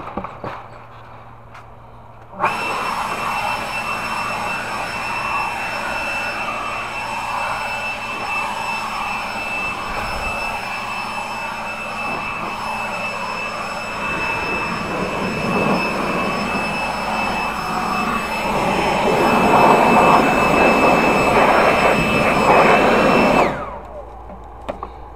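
An electric motor with a rush of air, like a blower or vacuum, switches on abruptly about two seconds in. It runs steadily with a high whine, grows louder near the end, and then switches off and winds down.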